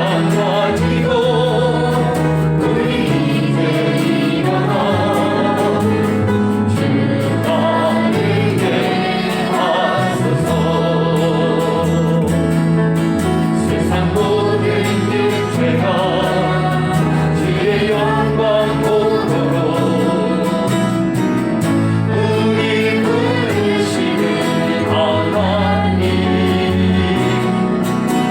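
A group of voices singing a Korean praise song together, with sustained low accompaniment underneath.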